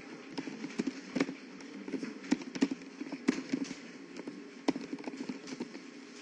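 Computer keyboard keys clicking in an irregular run of keystrokes while someone types, over a steady low hum.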